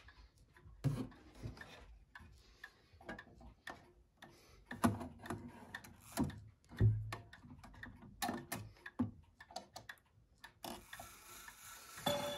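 Pendulum wall clock ticking, with irregular clicks and knocks as its minute hand is turned by hand up to the hour. A ringing chime strike begins right at the end.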